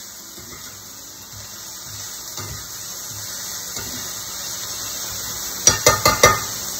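Diced red onions sizzling in hot oil in a frying pan, the sizzle slowly growing louder. Near the end the spatula knocks sharply against the pan four times in quick succession.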